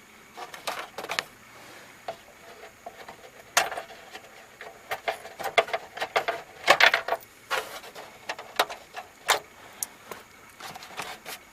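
Plastic dashboard trim being worked loose from its retaining clips by hand: scattered clicks, knocks and rattles of plastic parts, with the loudest cluster a little past halfway.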